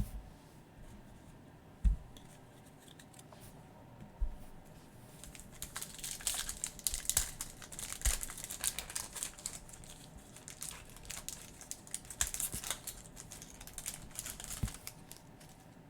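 A thump about two seconds in, then from about five seconds on a long run of crinkling and tearing as a trading-card pack wrapper is torn open.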